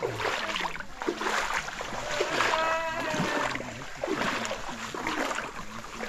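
Footsteps splashing and sloshing through shallow water on a flooded trail, with branches of a fallen tree rustling and scraping as they are pushed through: irregular splashes and knocks.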